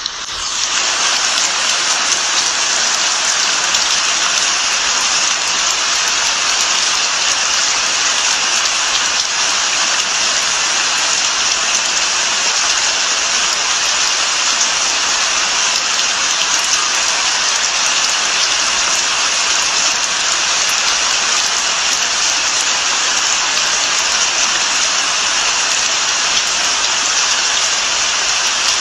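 Steady rain falling, an even hiss strongest in the upper range, fading in over the first second.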